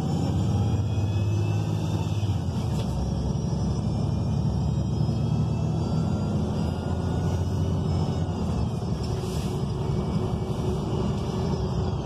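Interior of a 2019 ENC Axess bus on the move, its Cummins Westport L9N natural-gas engine and Voith transmission giving a steady low rumble with road noise, and no HVAC fan running. Faint high whines glide down in pitch about two seconds in and again near nine seconds.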